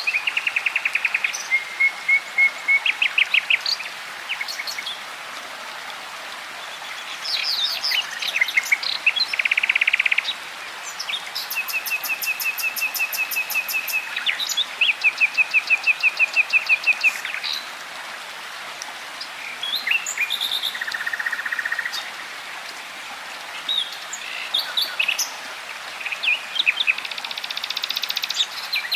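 Songbirds singing: a run of rapid trills and quickly repeated chirps, some high and thin, with short pauses between phrases, over a steady background hiss.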